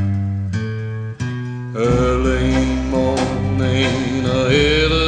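Hillbilly bluegrass-country band playing: a couple of held guitar chords, then the full band comes in about two seconds in, with a wavering melody line over the rhythm.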